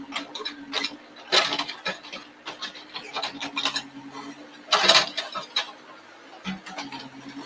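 An excavator's diesel engine runs with a steady drone while its steel bucket scrapes and pushes loose soil and stones. There are loud crunching scrapes about a second and a half in and again near five seconds.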